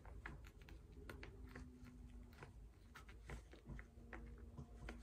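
Faint, irregular small clicks and taps of a metal tool and pen parts being handled as a fountain pen's ink-stop rod is worked through its O-ring seals. A faint steady hum lies underneath.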